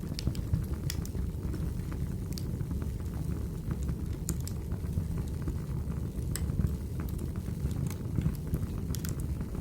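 Wood fire crackling in a fireplace: a steady low rumble of the flames with scattered sharp pops and snaps from the burning logs.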